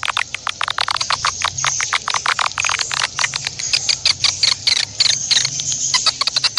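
An animal's call: a fast, even series of sharp clicking chirps, about eight a second, running on without a break.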